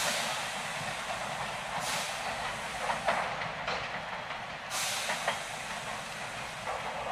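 Tobu 10030 series electric train pulling out, running steadily with a few short clacks of wheels over rail joints and points. Two sharp bursts of air hiss come from the train, about two seconds and five seconds in.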